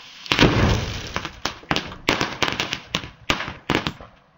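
Firework packed in a metal cigar tube going off: a loud burst about a third of a second in, then a string of about a dozen sharp cracks over the next three and a half seconds.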